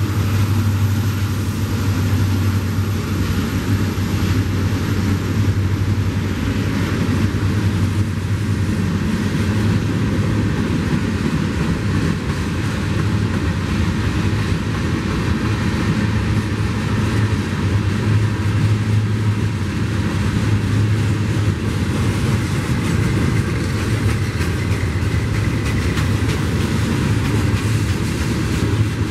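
Union Pacific freight train passing close by: the last of its diesel locomotives goes past at the start, then a long string of tank cars rolls by with a steady, loud rumble of wheels on rail.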